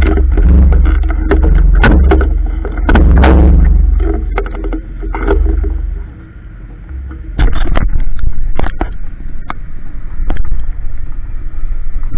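Aprilia Tuono motorcycle engine running at low revs as the bike rolls slowly, picked up by a head-mounted camera with a heavy low rumble and frequent clicks on the microphone. The level drops briefly about six seconds in, then the rumble returns loud.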